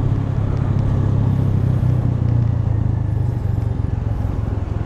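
Motorcycle engine running steadily at low street speed, an even low rumble.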